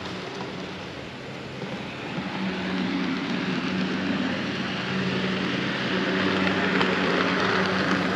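Model train running on the layout: a steady motor hum under the rumble of wheels on track, getting louder about two seconds in.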